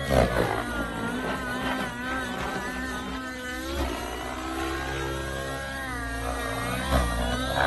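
Tron 700 Nitro radio-control helicopter's glow engine and rotor in flight, the pitch of the engine and blades rising and falling again and again as it manoeuvres, with brief louder surges near the start and about seven seconds in.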